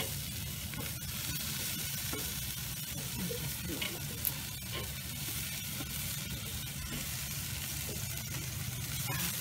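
Marinated, barbecue-sauced pork chops sizzling on the grate of a charcoal kettle grill: a steady hiss with a few small crackles.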